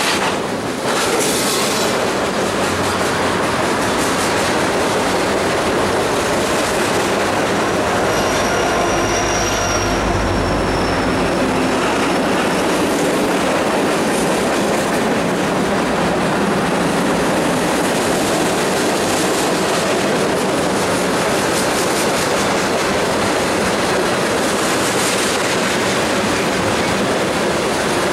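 Freight cars (boxcars, covered hoppers and tank cars) rolling past on steel rails, wheels clattering over the rail joints in a steady loud rumble, with a faint high wheel squeal about a third of the way in.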